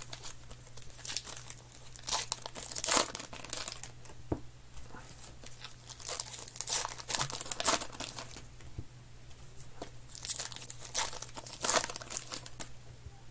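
Baseball card pack wrapper being torn open and crinkled by hand, in irregular bursts of crackling over a faint steady low hum.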